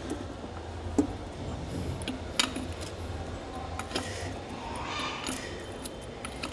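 A spark plug spanner clinks against the screws of a Royal Enfield Standard 350's clutch cover as they are being undone, giving a few sharp metal clicks spread through.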